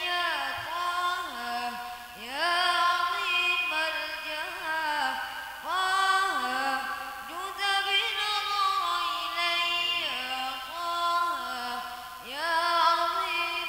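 Singing over music: a voice carrying long, gliding, ornamented phrases, pausing briefly every few seconds.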